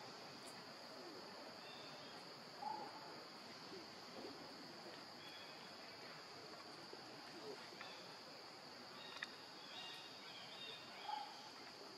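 Faint, steady high-pitched insect drone, with a few short, faint chirps over it.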